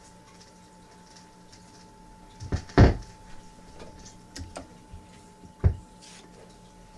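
A few sharp knocks over a faint steady hum: two close together about two and a half seconds in, the louder second one just under three seconds in, and another near the end.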